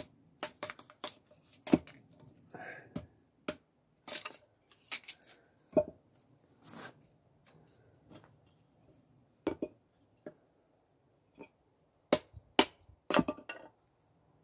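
Hatchet splitting kindling sticks on a wooden chopping block: irregular sharp knocks of the blade into the wood with splintering between them, the loudest blows coming in a quick cluster near the end.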